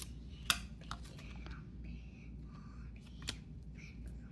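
Stadium Club football trading cards being flipped through by hand, sliding against each other with soft rustles and a few sharp snaps, the loudest about half a second in and just after three seconds.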